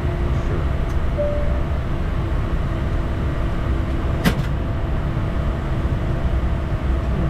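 Steady in-flight noise of a Bombardier Challenger 350 jet, airflow and engine rumble with a faint steady hum, and one sharp click about four seconds in.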